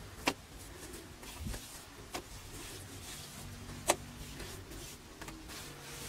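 Stones knocking against each other as a flat stone slab is set and adjusted on upright stone supports: a sharp knock just after the start and a louder one about four seconds in, with a couple of softer taps between.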